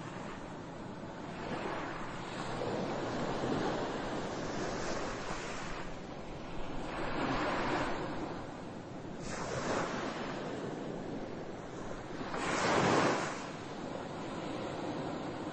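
Rushing noise like surf, swelling and fading every few seconds, with the largest swell about three-quarters of the way through.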